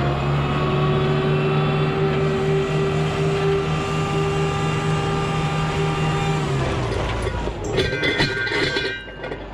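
Mack semi truck's diesel engine running steadily under way, then easing off with its pitch falling about two-thirds of the way in. Near the end comes a brief high-pitched squeal mixed with rattling.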